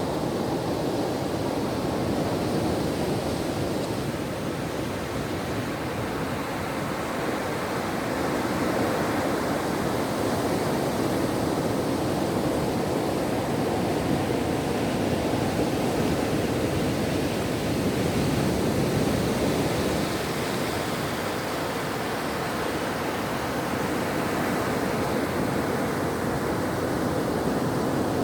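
Ocean surf washing onto a shore: a continuous rushing sound that swells and eases gently over several seconds.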